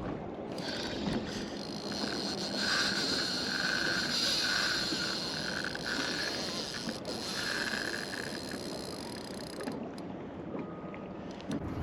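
Fishing reel being wound in on a hooked fish, in stop-start spells that end about nine seconds in, over wind and water noise.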